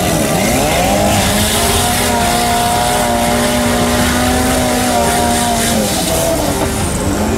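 Off-road 4x4's engine revving hard as it ploughs through a deep mud-water pit, with heavy splashing and spray of muddy water. The revs drop and climb again just after the start, hold high for a few seconds, then dip and rise once more near the end.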